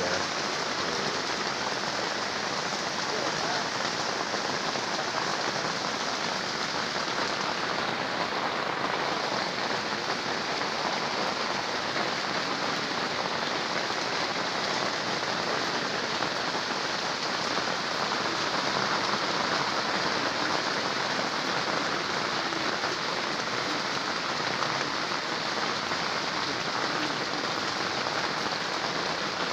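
Rain falling steadily, an even, unbroken hiss with no change in strength.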